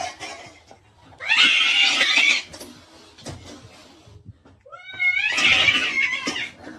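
A cat giving two long, loud cries, each lasting about a second, with a pause of a few seconds between them.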